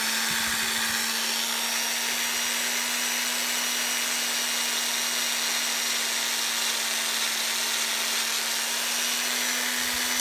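Antique Black & Decker electric drill's brush motor running at a steady, unchanging whine with a quarter-inch bit, boring through a small block of wood.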